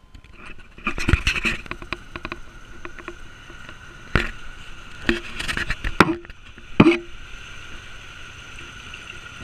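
A run of knocks and clanks as a pickup's hood is raised and a metal pitcher is handled, the loudest a single thunk about seven seconds in. Near the end, water is poured into the windshield washer reservoir.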